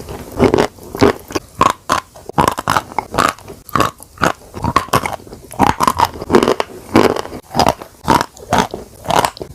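A person biting and chewing chalk eaten with a paste: sharp crunches about twice a second, with softer chewing between them.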